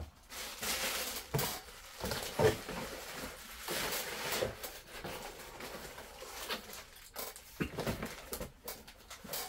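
Packaging being handled during an unboxing: irregular rustling and soft knocks, with no steady rhythm.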